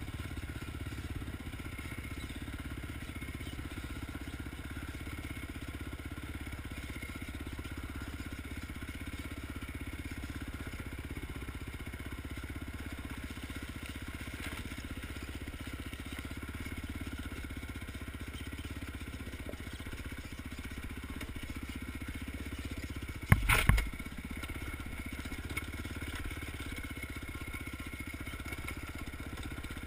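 Honda TRX450R quad's single-cylinder four-stroke engine running at a steady pitch as it pulls up a rocky hill climb. Near the end comes a short burst of loud knocks and clatter.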